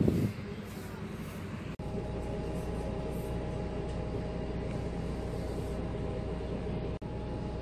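Steady drone of a running vehicle engine, with a low rumble and a few fixed steady tones. The drone cuts out for an instant about two seconds in and again near the end.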